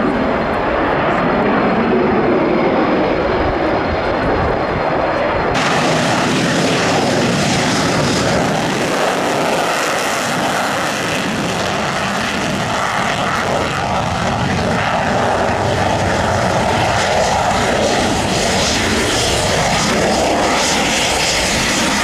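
Military jet engines running with a loud, steady roar. About five and a half seconds in, the sound changes abruptly to a closer, hissier jet: a Sukhoi Su-22 Fitter's single turbojet as it taxis past.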